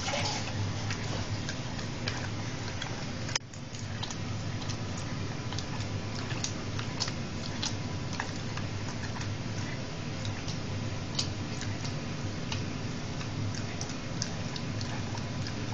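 Bull terrier licking and smacking its mouth on a sticky mouthful of peanut butter: irregular wet clicks and smacks over steady background noise.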